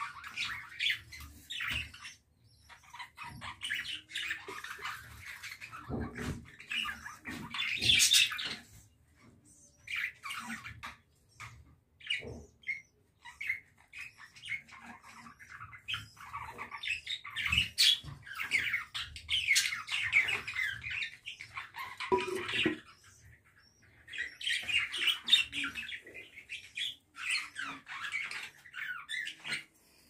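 Budgerigars chattering and squawking in bouts a few seconds long, with short pauses between.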